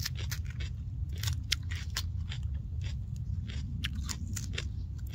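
Close-up crunching of a raw sweet pepper being bitten and chewed: a quick, irregular run of sharp, crisp crackles over a steady low rumble.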